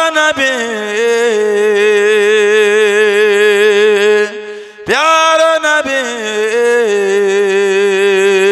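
A man singing a naat unaccompanied, drawing out long wordless held notes with a wavering vibrato. There are two phrases, with a short break for breath about four and a half seconds in.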